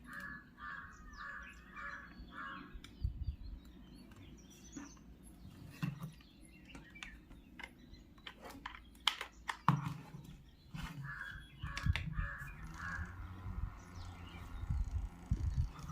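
A bird calling outdoors, most likely a crow: a quick run of about five short calls at the start and another run about eleven seconds in. Scattered clicks and low knocks come between them.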